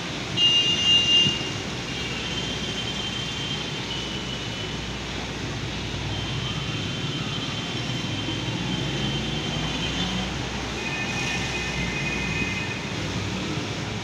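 Steady rumble of street traffic and running engines. A few loud, short, high-pitched beeps come about half a second in, and fainter high tones come and go over it later.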